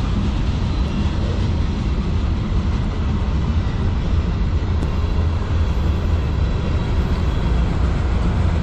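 Freight train cars (autoracks and covered hoppers) rolling past on the track: a steady, loud rumble of steel wheels on rail.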